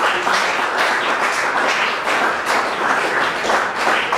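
An audience applauding, with many hands clapping together at a steady level.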